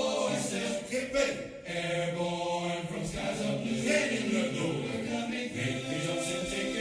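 Choral chant music: many voices singing together and holding long notes.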